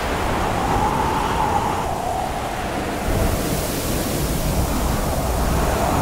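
Stormy sea sound effect: a continuous rushing of heavy waves and wind that swells about three seconds in, with a faint wavering whistle of wind.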